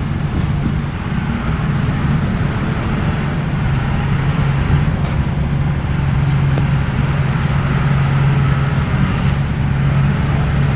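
Bulldozer's diesel engine running steadily under load, a low constant hum, with a few faint light clinks in the middle.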